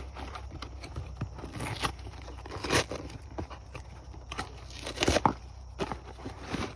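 Cardboard boxes being torn, crushed and stuffed into a bin: irregular crackling and crunching, with two louder crunches about three and five seconds in.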